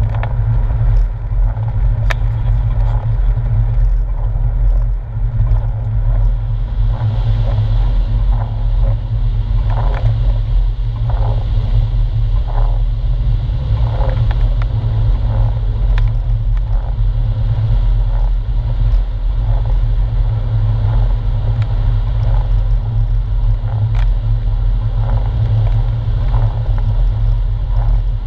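Porsche 997 flat-six engine running at a steady low drone while driving, heard from inside the cabin. Tyre hiss from the wet road surface sits beneath it.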